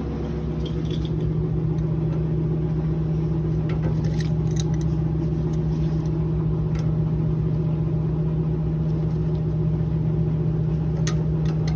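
An electric motor running steadily with a loud low hum, with a few faint clicks over it.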